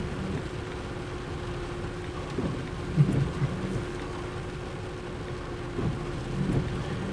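Rain falling on a car and a double-stack intermodal freight train rolling past, heard from inside the car as a steady low rumble and hiss. A few low thumps come and go, some of them as the windshield wipers sweep.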